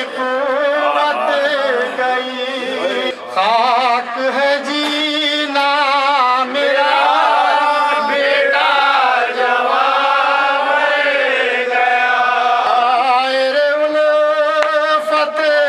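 Male voice chanting an Urdu nouha, a Shia mourning lament, unaccompanied, in long held melodic lines through a microphone.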